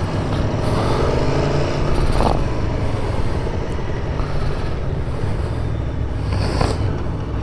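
Aprilia Tuono V4 1100's V4 engine running steadily while the motorcycle rides along, with wind noise over the helmet microphone.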